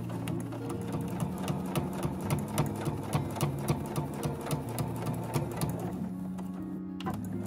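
Domestic sewing machine stitching at a slow, even pace along a fabric edge, about three needle strokes a second, stopping near the end. Soft background music plays underneath.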